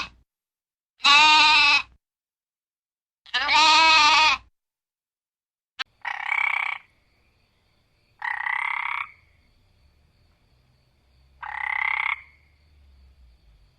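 A goat bleating twice with a wavering pitch, then, after a sharp click, three harsh croaking animal calls a few seconds apart.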